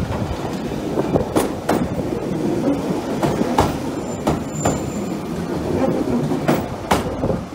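Ex-London Underground 1938 tube stock train (Island Line Class 483) rolling slowly into the platform. A low rumble runs under irregular sharp clacks of wheels over rail joints, and a brief high squeal comes about four seconds in.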